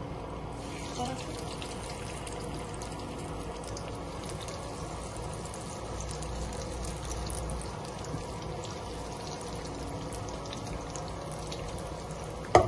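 Masala-marinated fish pieces sizzling and crackling steadily in hot oil in a frying pan; the crackle grows stronger about half a second in as more fish goes into the oil. A short sharp knock near the end.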